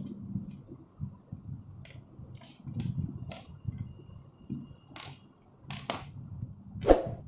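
Wired earphones handled on a wooden table: scattered light clicks and taps of the plastic earbuds and cable, with a low rumble of handling and one sharper knock near the end.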